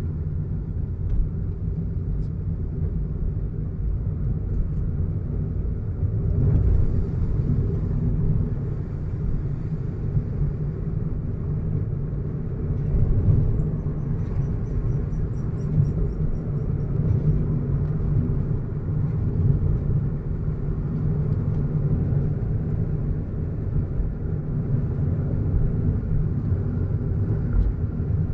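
Steady low rumble of a car driving along a road. About halfway through there is a brief run of high, evenly spaced chirps.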